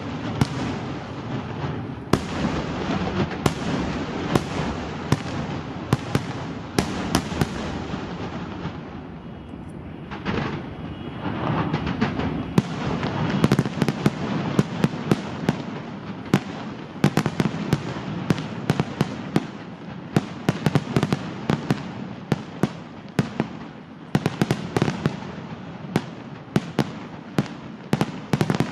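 Aerial fireworks display: a dense, continuous run of sharp cracks and bangs over a rumble of bursting shells. It thins out briefly about a third of the way in, then grows denser, with rapid cracks crowding the second half.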